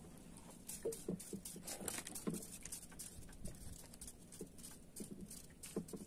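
Faint, irregular light knocks and taps, a few scattered through, with several small thumps among them.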